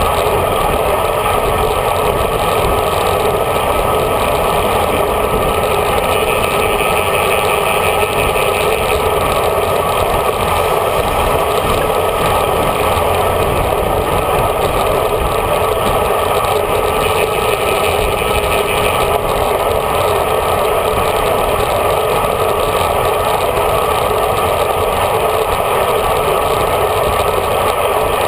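Steady wind rush and tyre hum from a road bike riding at speed in a group, picked up by a handlebar-mounted GoPro Hero HD. The noise holds unbroken at the same level.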